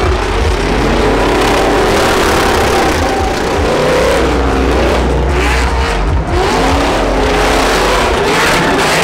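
Pickup truck engines held at high revs during burnouts and donuts, the engine pitch swinging up and down over a constant hiss of spinning tyres.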